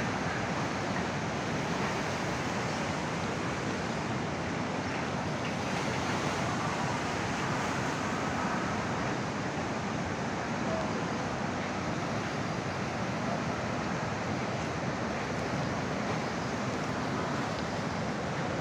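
Floodwater rushing in a swollen river: a steady, unbroken rush of water.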